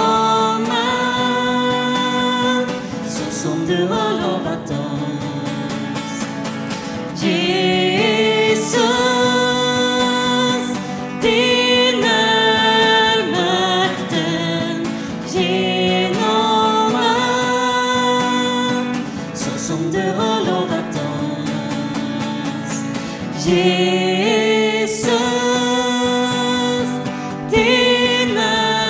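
Live worship band music with a sung melody over instrumental accompaniment, long held notes gliding between pitches.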